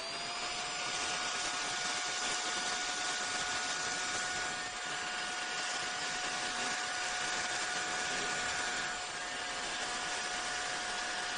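Cordless handheld car vacuum cleaner switched on, its motor whine climbing in pitch for a moment and then running steadily with a rush of air.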